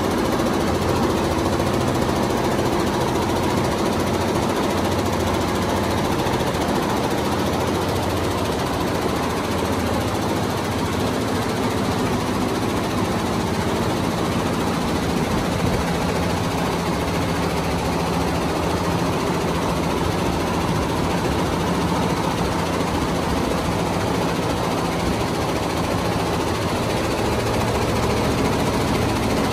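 Multi-head computerized embroidery machine running, its needle bars stitching into velvet at a fast, steady rate: a continuous dense mechanical clatter over a steady low drone.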